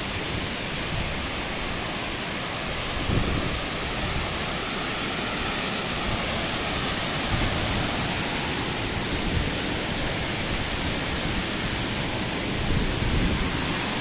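Steady rush of a forest waterfall pouring down rock into a plunge pool.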